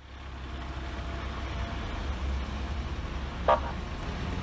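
Street traffic with a steady low rumble of passing cars, and a single short car-horn toot about three and a half seconds in.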